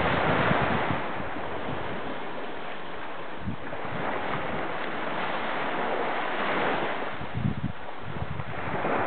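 Small waves breaking and washing up a sandy shore, louder at the start and swelling again about six seconds in, with wind buffeting the microphone in short low rumbles.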